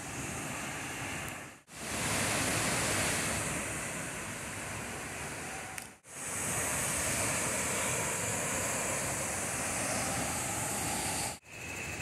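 Steady rushing of a waterfall, cut off briefly three times where the footage is edited.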